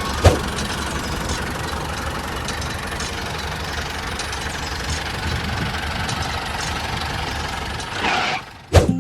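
An engine running steadily at idle, with one sharp knock about a third of a second in and a brief whoosh near the end.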